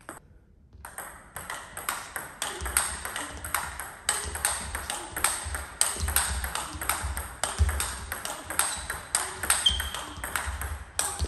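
Table tennis rally: the plastic ball clicking sharply off the bats and the table, about three hits a second, starting about a second in, with low thuds underneath.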